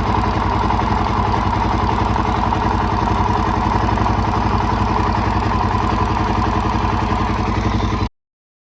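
Suzuki DR-Z400SM single-cylinder four-stroke engine, bored out to 434cc, idling warm with a ticking over the steady running, which the owner traced to the automatic decompression mechanism and judged normal, valves still in spec. The sound cuts off abruptly near the end.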